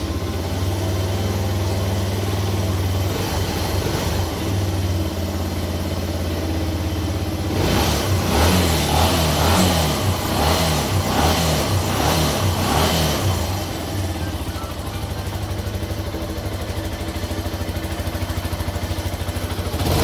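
Benelli BN125's single-cylinder 125 cc four-stroke engine idling steadily just after a restart, its idle adaptation completed. From about eight seconds in it is revved in a quick series of short throttle blips for several seconds, then settles back to an even idle. The engine runs smoothly.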